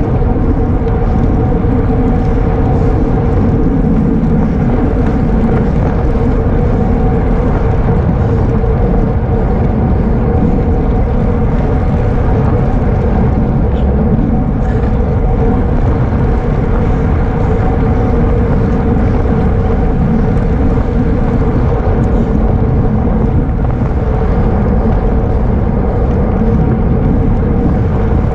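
Wind rushing over the microphone of a camera on a racing bicycle at speed, loud and unbroken, with a steady hum running underneath.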